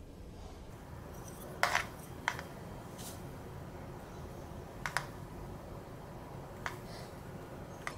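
A steel ladle clicking and tapping lightly against a plastic idli mold and the batter bowl as thick batter is spooned into the cups, about five small taps over a faint steady room hum.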